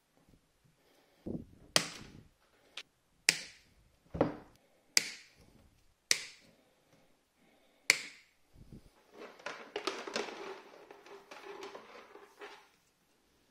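A series of about six sharp clicks and snips, with a few dull thuds, as plastic cable ties on a refrigerator compressor's stator wiring are worked and cut with scissors. This is followed by several seconds of rustling and scraping as the cables are moved across a wooden tabletop.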